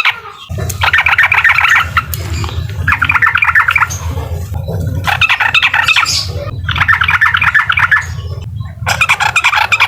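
Yellow-vented bulbul (trucukan) singing in its 'uklik' style: five phrases of rapid chattering notes, each about a second long, with short gaps between. A steady low hum runs beneath from about half a second in.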